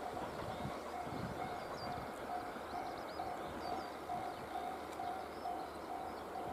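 Railway level-crossing warning bell ringing at a steady on-off beat, over the low rumble of a train pulling away, with small birds chirping now and then.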